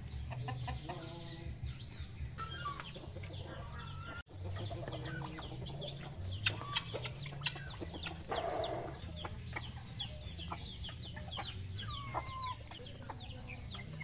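Backyard poultry flock of chickens, guineafowl and a turkey clucking and chirping at feeding time, with many short, high calls overlapping. The sound cuts out for an instant about four seconds in.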